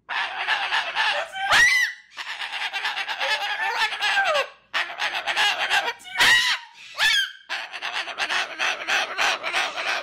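Moluccan cockatoo calling right at the microphone: rapid chattering and a drawn-out wavering call, broken by three sharp rising screeches.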